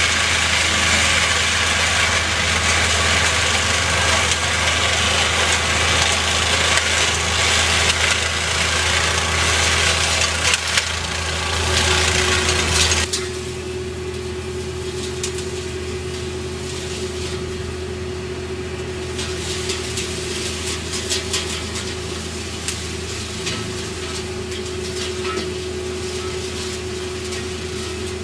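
Road-rail excavator's engine and hydraulics working hard with loud, dense mechanical noise, then dropping suddenly about halfway through to a quieter steady run with a held whine.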